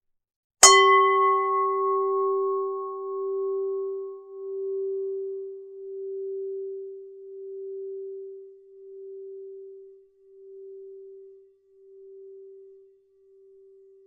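A Buddhist standing bell (singing bowl) is struck once, about half a second in. The bright upper overtones die away within a few seconds, while the low fundamental rings on with a slow, even pulsing and fades nearly to nothing by the end.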